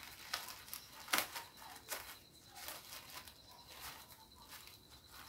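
Faint rustling and tearing of a white mailing packet being torn open by hand, with scattered sharper crackles, the loudest about a second in.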